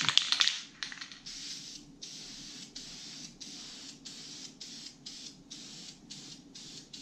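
Aerosol spray-paint can hissing in short, rapid bursts, about three a second, as it is pulsed on and off over the metal.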